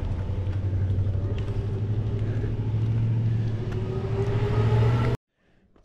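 Riding noise on a bicycle: wind rumbling on the microphone over a steady low drone, with a faint rising whine in the last couple of seconds, cut off abruptly about five seconds in.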